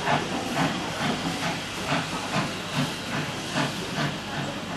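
BR Standard Class 4 4-6-0 steam locomotive 75027 pulling its train away from the platform, with a steady run of exhaust chuffs about two a second over a constant hiss of steam.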